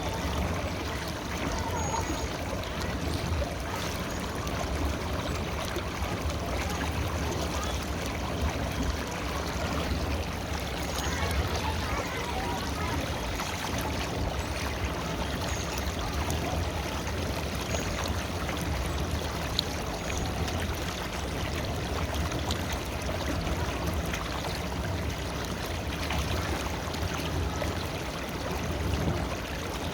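River water flowing steadily, a continuous rush and trickle of running water.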